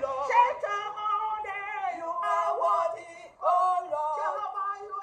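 Two women singing a worship song together, voices holding long notes, with a short break about three seconds in.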